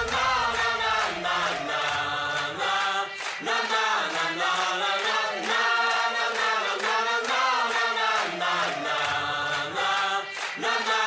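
Music: a choir singing a melody over a steady beat.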